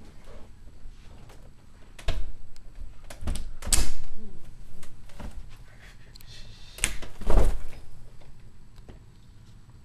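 A series of knocks and scraping bumps, the loudest about four seconds in and again about seven and a half seconds in.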